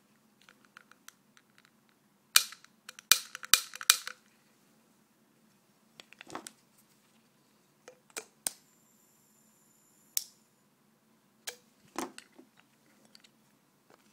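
Homemade butane gun (lighter igniter, small bottle and pipe) being handled and clicked: a string of sharp clicks and knocks, with a quick run of the loudest ones about two and a half to four seconds in. A brief high ringing comes about eight and a half seconds in.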